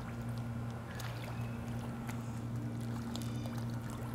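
A steady low hum with faint water splashing and sloshing, and a few light clicks.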